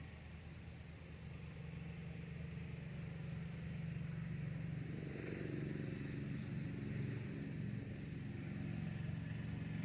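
A motor vehicle's engine running: a low, steady rumble that grows louder over the first few seconds.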